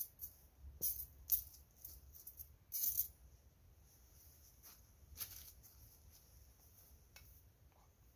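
Thin metal wire grill grate rattling and clinking as it is unfolded and set on the ground: a quick cluster of sharp jingles in the first three seconds, then a few scattered clicks.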